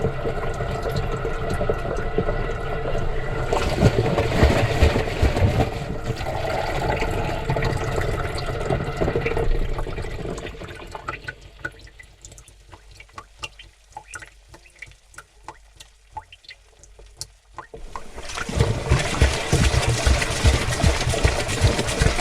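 Water sloshing and churning inside a washing machine drum, heard from within the drum, with dull low thumps. About ten seconds in it dies away to scattered drips and small splashes as the drum pauses between turns, and the sloshing starts up again a few seconds before the end.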